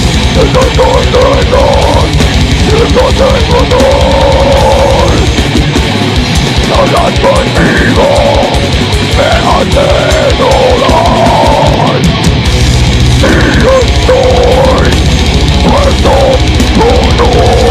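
Heavy metal band playing live, loud and dense: fast, driving drums under a pitched lead line that bends up and down in pitch.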